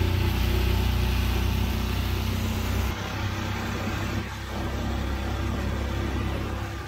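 Small motor boat's engine running steadily under way, a deep hum that drops a little in level about three seconds in.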